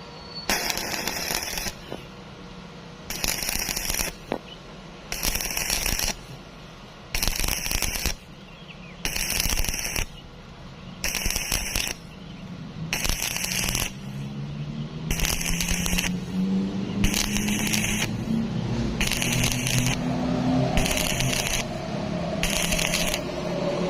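Stick-welding arc crackling in short bursts, about one every two seconds, a dozen in all. About halfway in, a low wavering hum rises underneath.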